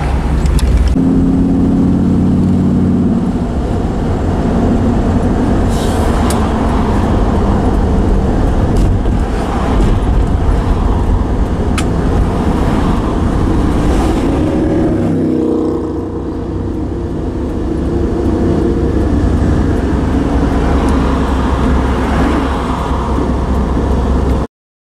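A motor vehicle running: a loud, steady rumble whose engine note changes pitch a couple of times, cutting off suddenly near the end.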